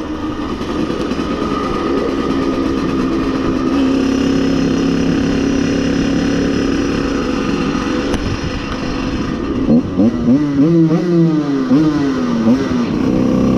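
Two-stroke engine of an 85 cc street-cross Simson moped running steadily under way, then revved up and down several times over the last few seconds.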